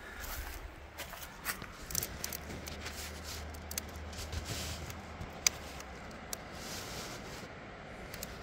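Footsteps and rustling from handling, with scattered small clicks and one sharp tick about five and a half seconds in, over a low steady rumble.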